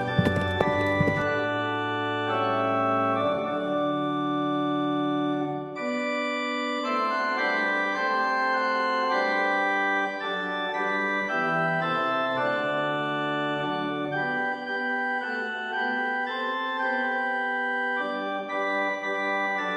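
Instrumental background music on an organ-like electronic keyboard: a melody of held notes, with no singing.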